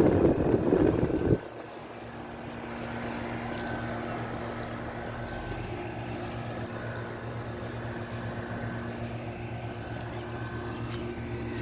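1998 Amana straight-cool central air conditioner condensing unit running: a steady hum of compressor and condenser fan. About a second and a half in, a loud rushing noise cuts off suddenly, leaving the quieter steady hum.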